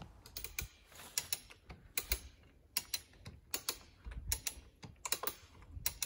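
Footsteps through forest undergrowth, twigs and dry debris crackling underfoot with short sharp clicks, mostly in pairs about every three quarters of a second.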